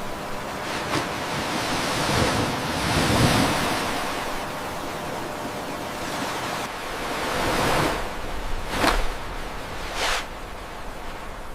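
Waves and surf washing: a steady rush of noise that swells about two to three seconds in and again near eight seconds. A few brief sharp sounds break through it, the loudest near nine seconds.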